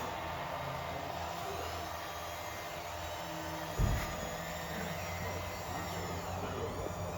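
Small electric motors of radio-controlled model construction machines whining, rising and falling in pitch over a steady low hum, with a single thump about four seconds in.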